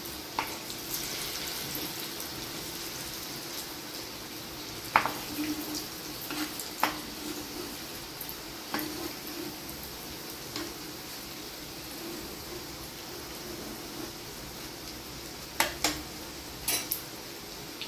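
Mutton shami kababs shallow-frying in plenty of oil in a nonstick pan, a steady sizzle. A spatula knocks against the pan several times as they are turned, twice near the middle and twice near the end.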